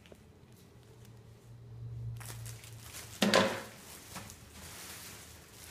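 Rustling and handling noise of plastic-wrapped items being moved about, with one louder bump a little past three seconds in.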